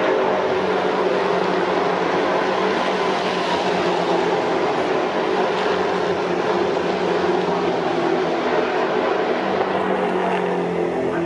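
V8 engines of NASCAR Whelen Euroseries stock cars running at racing speed past the straight, several cars overlapping in one loud, steady engine note.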